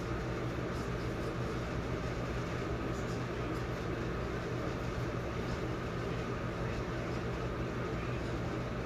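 Steady mechanical hum and whir of a running appliance motor, unchanging throughout, with a few faint ticks.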